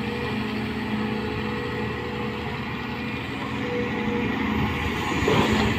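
Volvo crawler excavator's diesel engine and hydraulics working steadily as it digs and raises a loaded bucket of soil, a constant drone with a humming tone, briefly louder about five seconds in.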